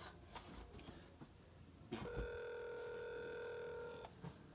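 Telephone ringback tone on speakerphone: one steady ring about two seconds long, starting about two seconds in, meaning an outgoing call is ringing unanswered on the other end.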